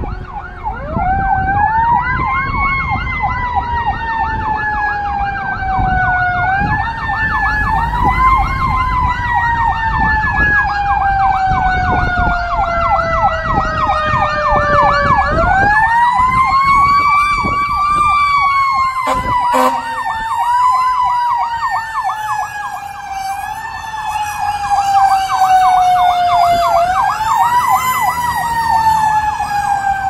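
Fire engine siren on an emergency response. A wail rises quickly and then slowly falls away, and is sounded again about five times, with a rapid yelp running alongside it for the first half. A low truck-engine rumble sits underneath.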